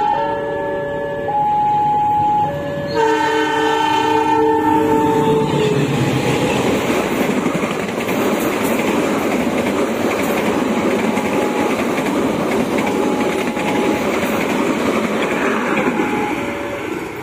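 Diesel-hauled passenger train sounding its multi-tone horn in three blasts, the third the longest. It then rushes past at speed with a loud, steady rumble and clatter of wheels on rail that begins to fade near the end.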